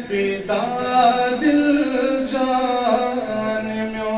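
A man singing a melodic recitation, amplified through a PA system. He holds long notes and glides slowly between pitches, with a new phrase starting about half a second in.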